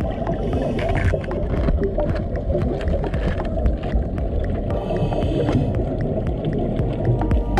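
Underwater ambience picked up by a submerged camera: a steady, muffled low rumble of moving water.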